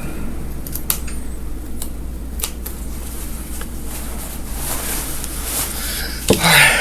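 Scissors snipping through seam threads of a fabric gown: a few scattered, sharp single snips over a steady low background hum, with a louder rustle near the end.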